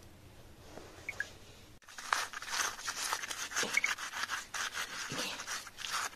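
Gloved fingers rubbing and scraping wet mud off a stone in damp soil: a quick, gritty run of scratching strokes that starts about two seconds in, after a faint start.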